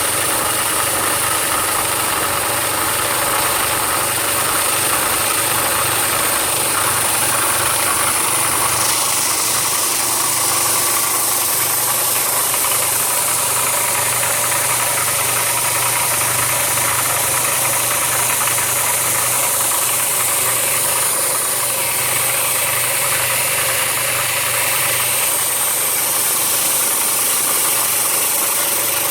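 Automatic electric sanding machine running steadily: a motor hum under a high hiss. The hiss changes tone about a third of the way in and again near the end, as the machine's movement changes.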